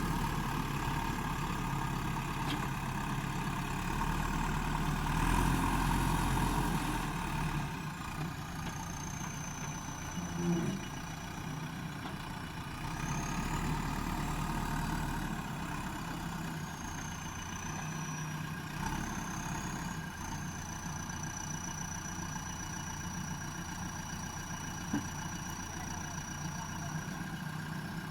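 JCB backhoe loader's diesel engine running steadily, a little louder for the first several seconds before settling lower. From about eight seconds in, a thin high whine wavers up and down in pitch over the engine, and there is one short knock near the end.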